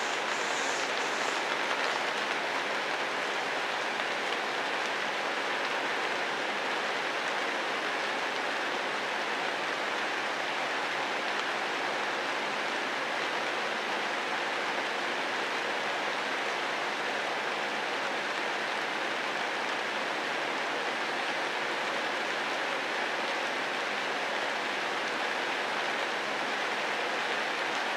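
Steady rain falling on leaves and foliage, an even hiss that does not change.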